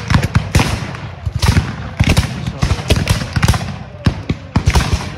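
Black-powder rifle muskets firing blank charges in a ragged volley, many shots overlapping several times a second, some loud and sharp, others fainter.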